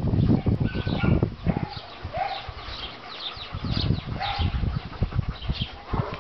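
German Shepherd dogs panting, with a few short high whines. Low scuffling of bodies and handling runs through the first second and a half.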